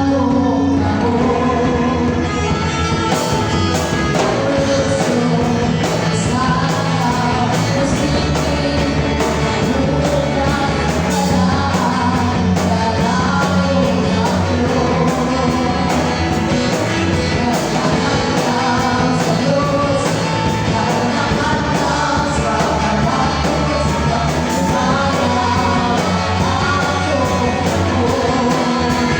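Live rock band playing a worship song with a lead vocal over guitar, bass and drums. The cymbals and full drum kit come in about three seconds in.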